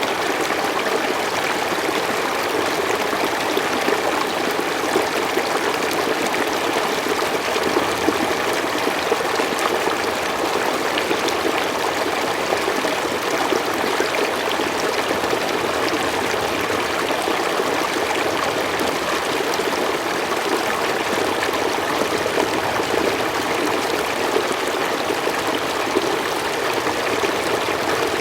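Forest stream flowing steadily over stones, a continuous babbling and trickling of running water.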